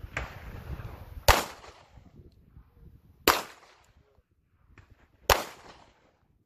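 Pistol fired one-handed: three shots, about two seconds apart, each a sharp crack with a brief echo.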